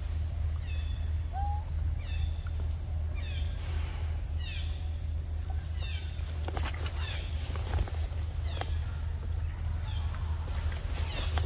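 Outdoor ambience: a bird repeats short, descending chirps about once a second over a faint, steady insect buzz and a constant low rumble. A few sharp clicks come in around the middle.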